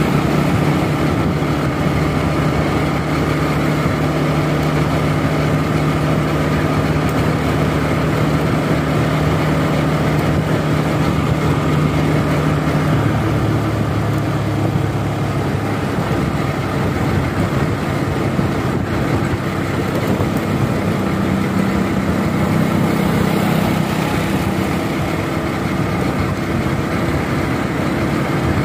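Motorcycle engine running at cruising speed, heard from the rider's position under a steady rush of wind and road noise. The engine note drops about halfway through and rises again about three quarters of the way in.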